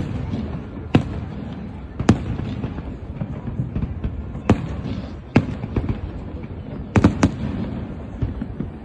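Fireworks display: sharp shell bursts bang every second or so, two in quick succession about seven seconds in, over a continuous crackle and rumble.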